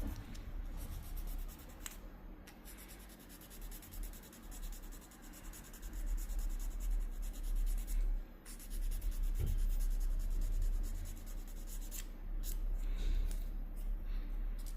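A nail file scraping against a repaired nail, shaping its tip to a point.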